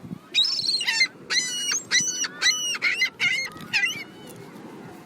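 Seagulls calling: a rapid run of about eight harsh, high calls that stops about four seconds in, over steady beach background noise.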